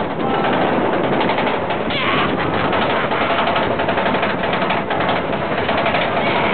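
Steel roller coaster train climbing the lift hill: a rapid, steady clatter of clicks from the chain lift and anti-rollback ratchet under the cars, with a brief rush of noise about two seconds in.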